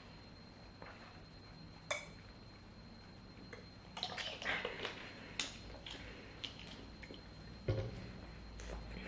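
Quiet eating and drinking at a table: a few sharp clicks of tableware, soft mouth and swallowing noises, and a low thump near the end.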